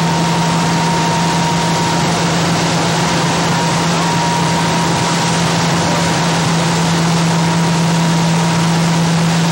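Steady mechanical din of fire apparatus engines and pumps running at a working fire, with a constant hiss and a low, unchanging hum.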